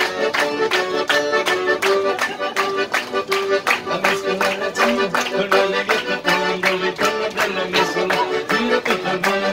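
Todeschini piano accordion playing a fast, rhythmic tarantella, melody notes over a quick, even beat.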